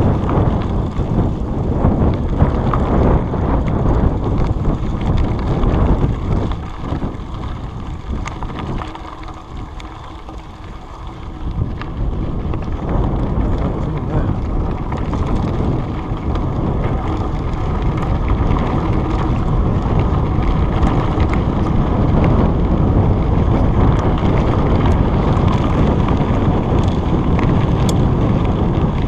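Wind buffeting the microphone of a chest-mounted action camera while riding a trail, a dense low rumble mixed with rattling. It eases off for a few seconds about a third of the way in, then builds back up.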